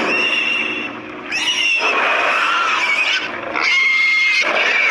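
Cartoon dragon screeching loudly, three long harsh calls in a row with a shrill whistling edge.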